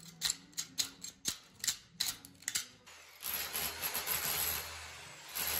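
A hand scraper scratching along a plaster seam on a wall in short quick strokes, about three or four a second. About three seconds in, a rotary hammer with a chisel bit starts chipping plaster off the concrete wall with a steady rattling noise.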